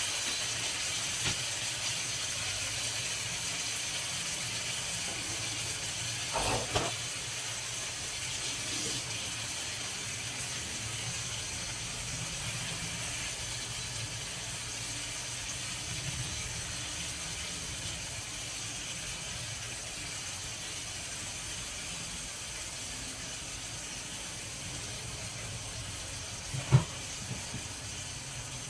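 Steady hiss of food cooking on a stove, with a low hum beneath it. A short knock of a utensil comes about six seconds in and a louder one near the end.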